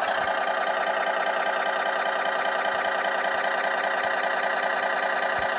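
Electronic engine sound from a 1989 Nylint Sound Machine toy semi-truck, a truck engine idling steadily through the toy's small speaker just after its start-up sound.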